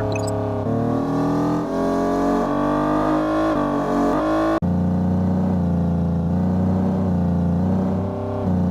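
Genesis G70's engine heard from inside the cabin, rising steadily in pitch as the car accelerates. About four and a half seconds in, the pitch drops abruptly, as in an automatic upshift, and the engine then runs at a steady lower note.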